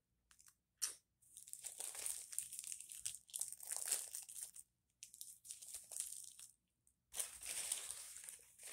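Thin plastic shrink-wrap being peeled off a cucumber and crinkled in the hands, in three stretches with short breaks.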